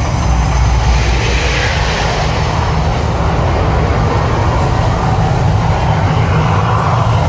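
The Mirage's man-made volcano show at full eruption: a loud, steady deep rumble with a rushing noise over it as the gas fire effects burn.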